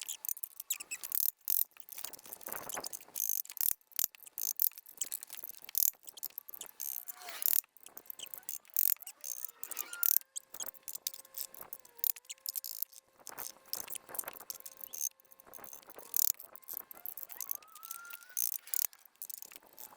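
Rapid, irregular metallic knocks and clinks of a copper hammer striking a socket to drive a wood chipper's axle out through its bearing.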